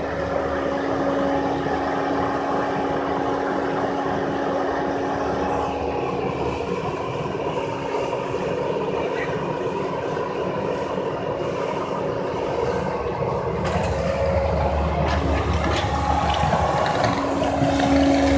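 Bobcat compact track loader's diesel engine running steadily with a constant hum, getting louder and heavier in the low end from about three-quarters of the way in.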